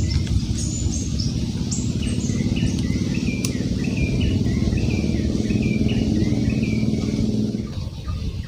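An engine runs with a steady low hum that fades away near the end. A bird sings repeated short chirping notes over it.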